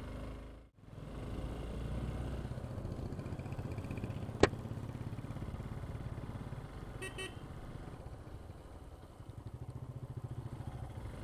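Hero XPulse motorcycle engine running on the move. The sound cuts out briefly just under a second in. A single sharp click comes about halfway through, and a short double horn toot about seven seconds in.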